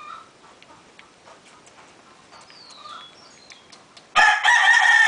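A rooster crows loudly, starting about four seconds in and still going at the end. Before it there are only faint scattered clicks.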